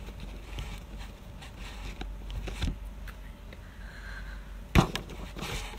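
Room tone with a steady low hum, a few faint clicks, and one sharp knock near the end.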